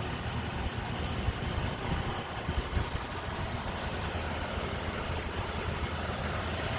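An engine idling steadily, with a steady low hum and an even hiss over it.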